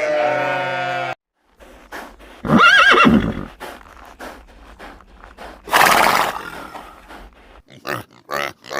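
A horse neighs briefly, in a short call that rises and falls in pitch, about two and a half seconds in. A loud breathy blow follows around six seconds in, with scattered faint knocks between. The first second holds the end of a bleat, which cuts off abruptly.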